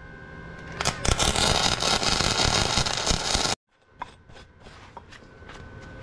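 Stick-welding arc crackling and sputtering for about three seconds as a steel flange is welded to a pipe bend, cutting off suddenly. Then a run of separate light metal taps and clicks.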